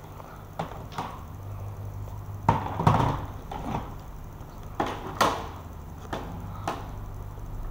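Handling noise of a handheld recording device: about nine irregular knocks and scrapes against the microphone, the loudest about two and a half and five seconds in, over a steady low hum.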